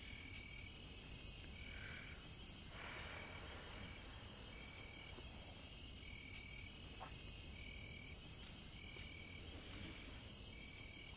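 Faint night chorus of insects: a steady high trill, with a short call repeating about once a second.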